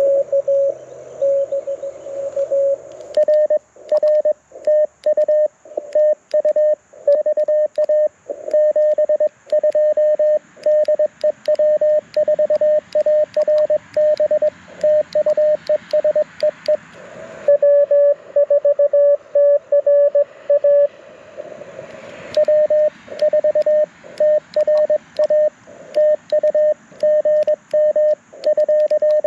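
Morse code (CW) from an LNR Precision Mountain Topper MTR4B V2 QRP transceiver, a single mid-pitched tone keyed on and off in dots and dashes, played through a small JBL Go 2 speaker. Through most of it, sharp clicks of the twin-paddle key come with the tones.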